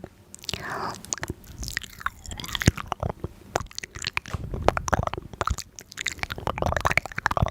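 Close-miked crunchy biting and chewing of food: a quick, irregular run of crisp crackles and clicks.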